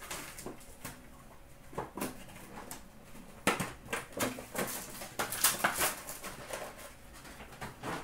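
Foil trading-card packs and a cardboard card box handled on a counter: irregular rustling, crinkling and light tapping as packs are stacked and the box is opened, busiest in the middle.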